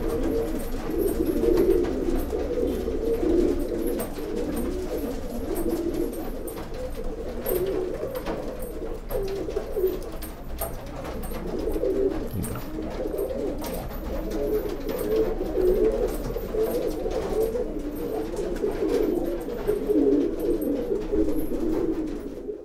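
Domestic pigeons cooing steadily, one coo running into the next; the sound cuts off suddenly near the end.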